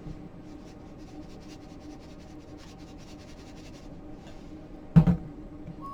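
Onion powder being shaken from a spice container into a bowl of dry coating mix: a run of light, quick scratchy ticks, then one loud thump about five seconds in.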